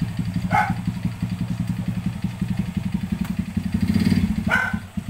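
Small motorcycle engine of a Skygo ERL 100 converted to a scrambler, idling with an even, rapid pulse. Its note swells briefly about four seconds in, then dips just before the end.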